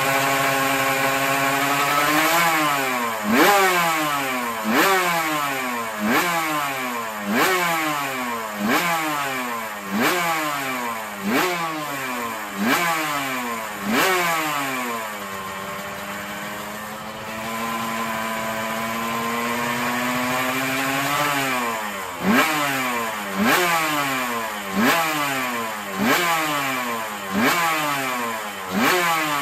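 Suzuki RGV Gamma 500 two-stroke V4 racing engine, blipped repeatedly on the throttle, each rev shooting up and falling back about every second and a half. Around the middle it is held at a steadier, slowly rising speed for several seconds before the blips start again.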